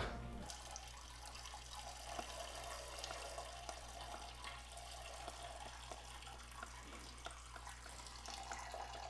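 Faint handling noise of plastic diffuser parts and packaging: scattered small clicks and rustles over a steady low electrical hum.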